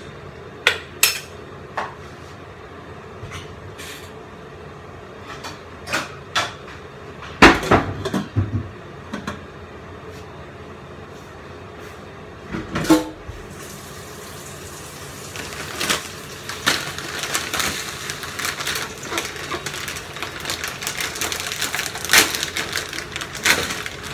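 Kitchen clatter: a metal ladle knocking against a cooking pot and a pot lid set down with a short ringing clank about halfway through, followed by a denser run of utensil knocks and rustling.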